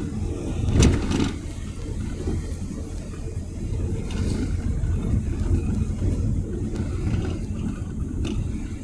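Car on the road, a steady low engine and road rumble, with a sharp knock about a second in and a lighter click near the end.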